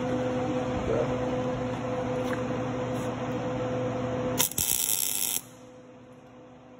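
A steady hum, then about four and a half seconds in a MIG welder strikes a short tack weld on steel, a loud crackle lasting about a second; the hum stops with it.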